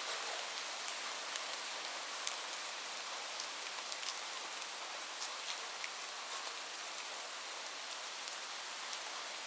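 Steady rain falling on a roof: a dense, even hiss with many scattered sharp drop ticks.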